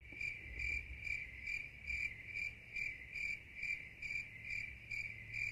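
Crickets chirping: one steady high-pitched trill that pulses about two to three times a second.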